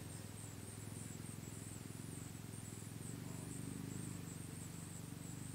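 An insect chirping in a fast, high-pitched pulsing trill, over a steady low hum; no gunshot.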